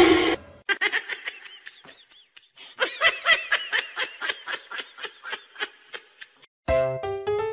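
A loud, short noisy burst at the start, then rapid, high-pitched giggling laughter in quick short pulses, about four or five a second. Keyboard music comes in near the end.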